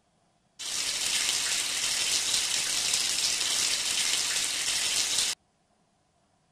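Water running steadily as hands are washed under it, starting suddenly and cutting off sharply after about five seconds.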